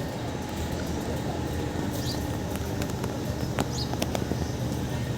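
Hydraulic static pile driver's engine running steadily with a constant low hum, with a few sharp clicks about three and a half to four seconds in.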